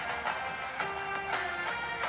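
Music with plucked strings, played back through a Sony Xperia phone's front stereo speakers for a speaker comparison.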